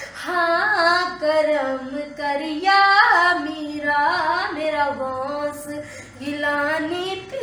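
A woman singing a Punjabi Sufi kalaam with no instruments heard: several long, ornamented phrases with short breaths between them.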